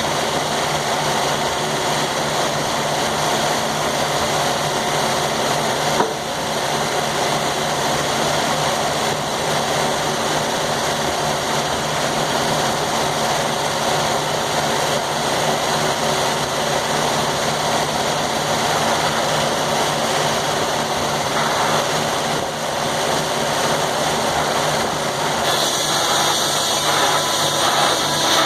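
Sawmill engine running steadily, with one sharp knock about six seconds in. Near the end a higher-pitched whine and hiss join in.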